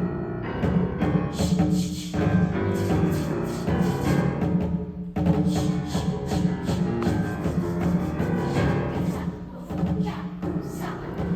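A youth choir's concert performance of a choral piece driven by heavy drum hits: repeated loud strokes over held pitched sound, with short breaks at about two and five seconds.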